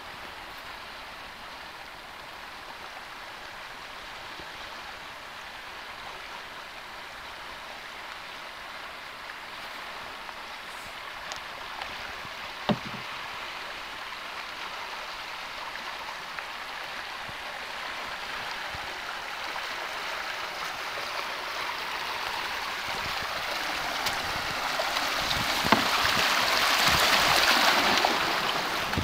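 Rushing river water heard from a canoe, growing steadily louder as the canoe runs into a riffle of rougher water. There is a single sharp knock a little before halfway and a few lighter knocks near the end.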